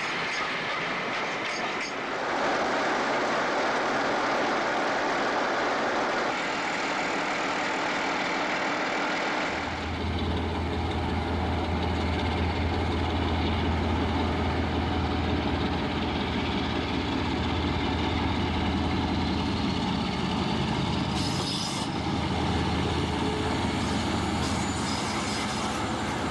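Diesel-hauled passenger train passing: a steady rush of wheel and rail noise, then about ten seconds in a deep, steady diesel engine drone comes in and holds.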